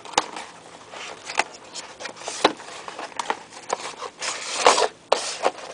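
A thin cardboard inner box being handled and worked open by hand: its flaps and sides scrape, rub and tap in short, irregular rustles and knocks, with the loudest handling noise a little over four seconds in.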